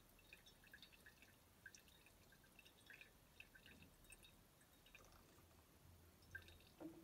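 Faint, irregular drips of window cleaner falling from a tilted plastic bottle into a glass measuring cylinder of water.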